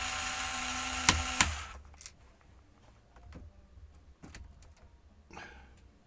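Small electric screwdriver running steadily for about the first second and a half, backing a screw out of a laptop case, with two sharp clicks just before it stops. After that, only faint clicks and light handling noises.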